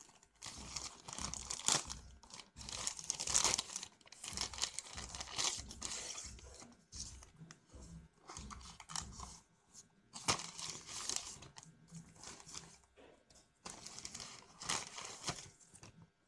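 Plastic courier mailer bag crinkling and tearing as it is ripped open by hand and the box inside pulled out, in irregular bursts with short pauses.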